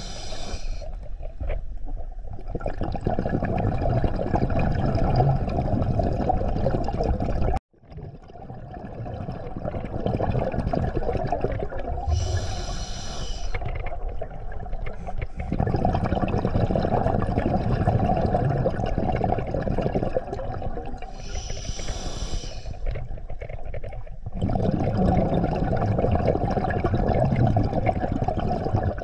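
Scuba diver breathing underwater through an open-circuit regulator. A short hissing inhale comes about every ten seconds, about three times, each followed by a long rushing stream of exhaled bubbles. The sound cuts out completely for a moment about eight seconds in.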